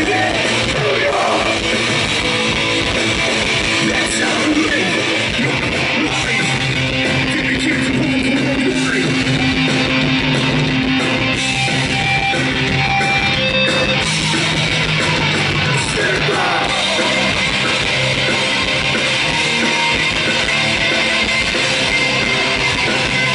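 Live hardcore punk band playing loud: distorted electric guitars, bass and drums, with shouted vocals.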